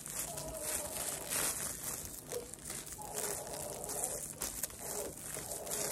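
Plastic strip yarn crinkling and rustling in uneven bursts as it is pulled through crochet stitches with a hook.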